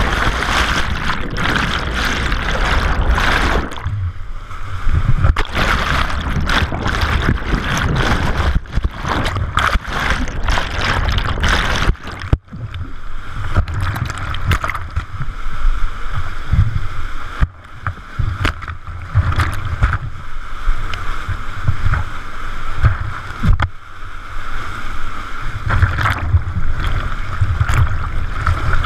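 Churning whitewater in a river whirlpool heard close up through a GoPro that is being dunked under and brought back up: a steady rumble of turbulent water with gurgling and splashing. The sound cuts out sharply for a moment about twelve seconds in, and dips again twice later.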